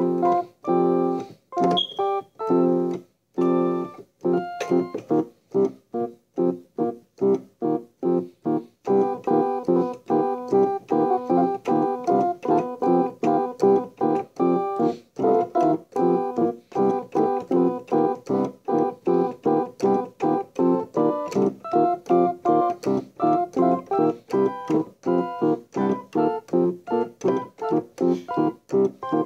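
Background music of repeated keyboard chords in a steady pulse, about two or three chords a second. It is sparse at first and becomes fuller about nine seconds in.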